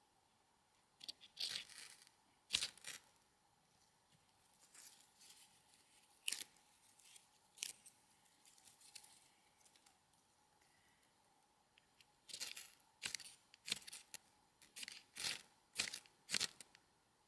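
Dry leaves and tinder being torn and crinkled by hand while feeding a small wood stove: a series of short, crackly rips in small clusters, coming thick and fast over the last few seconds.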